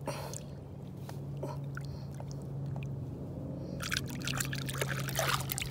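Water splashing and trickling around a hand and forearm dipped in the water at a boat's side, soft at first and much louder and busier from about four seconds in. A steady low hum runs underneath.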